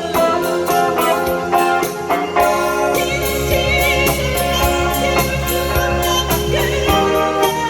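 Pop song accompaniment playing, with guitar and keyboard chords; a deep bass line comes in about two and a half seconds in, and a wavering lead melody sounds above it until near the end.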